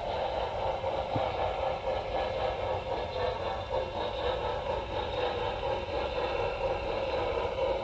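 Model train running along the track, heard from a camera riding on it: a steady whirr of the motor and wheels on the rails with faint high whine, and a small tick about a second in.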